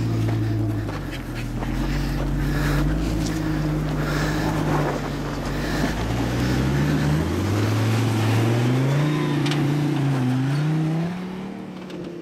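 Off-road 4x4 truck engine working through a rough trail obstacle, its pitch dipping and rising as the throttle changes, climbing higher late on, then fading away near the end.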